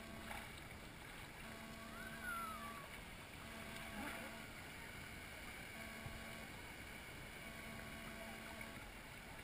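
Lazy-river water flowing and lapping around floating inner tubes, a faint steady wash. Faint tones come and go throughout, and a brief rising-then-falling tone sounds about two seconds in.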